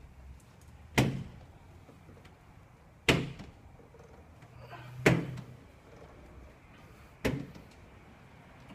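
Four sharp knocks about two seconds apart, each with a short ring-off.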